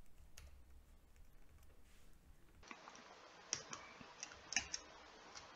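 Faint room tone with a low hum, then a few short, sharp clicks between about three and five seconds in.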